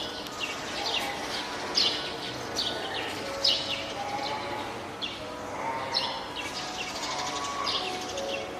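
Spotted seal pup calling loudly, short calls repeated a little more than once a second. These are the cries of a hand-reared pup, which seem to mean it is hungry, wants to climb out onto land, or is calling its keeper.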